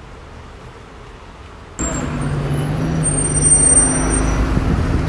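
Faint street ambience that cuts suddenly, about two seconds in, to a red London bus close by, its engine running with a steady low drone. Thin high squeals sound over it a second or so later.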